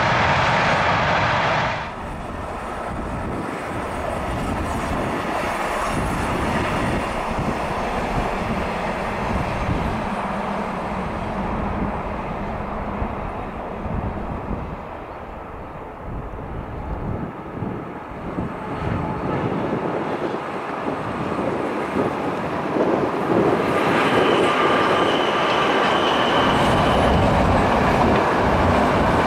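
Freight trains rolling past on the rails. A passing train of wagons stops abruptly about two seconds in. A Škoda 'laminátka' electric locomotive hauling car-transporter wagons then rumbles past, growing louder near the end, with a thin high wheel squeal for a few seconds.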